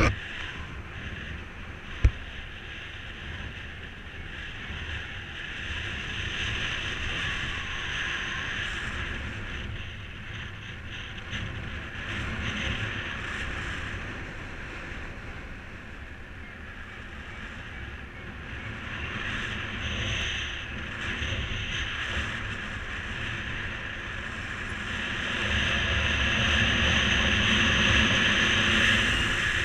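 Wind rushing over the microphone during paraglider flight, swelling and easing several times and loudest near the end. A single sharp click about two seconds in.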